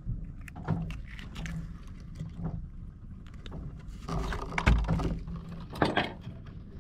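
Handline being hauled in by hand over the side of a small wooden boat: irregular clicks and knocks of line, hands and fish against the wooden hull, busiest and loudest between about four and six seconds in, with a heavy thump near five seconds, over a low steady rumble.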